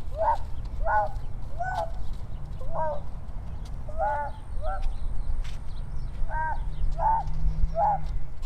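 An animal calling over and over in short, pitched calls that rise and fall, about one or two a second with a few pauses, over a steady low rumble.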